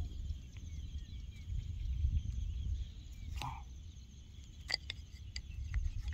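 Steady insect chirring over a low wind rumble on the microphone, with a brief cluster of sharp clicks about five seconds in as the wooden sticks of a snare trigger are handled.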